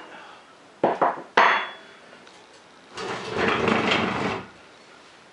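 Two sharp metallic knocks with a short ring about a second in, then about a second and a half of metal scraping and grating as a model steam engine's cast metal bed is shifted and turned on a rusty iron stand.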